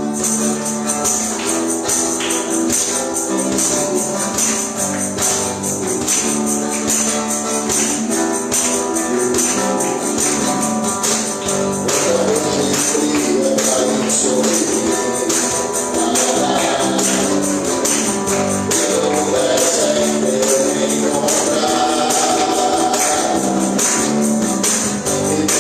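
Live church praise band playing an upbeat gospel song, a tambourine shaken in a fast steady rhythm over held chords; singing voices come in about halfway through.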